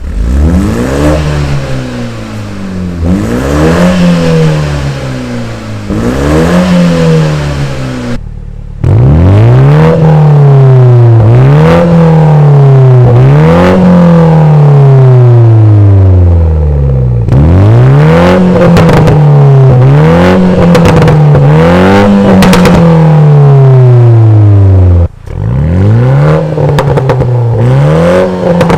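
BMW Z4's 2.0-litre turbocharged four-cylinder (B48) running through a Fi EXHAUST valvetronic catback exhaust, revved over and over, each rev rising and then falling back. The sound breaks off abruptly three times between takes. In the middle stretch, sharp cracks sound as the revs drop.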